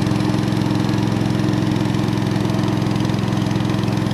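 Small boat engine running steadily at an even speed, with a fast, regular putter.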